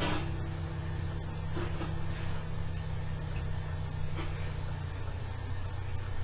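Steady low hum, with its highest line dropping out about five seconds in, and a few faint small taps.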